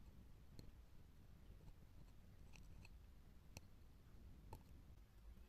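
Near silence, with a handful of faint, sharp clicks and ticks from fingers handling a perforated aluminium-foil heat exchanger.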